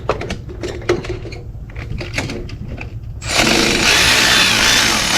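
Light clicks and knocks of tools on metal. Then, a little over three seconds in, a power tool starts suddenly and runs steadily, spinning a 13 mm socket on an AC compressor mounting bolt to break it loose.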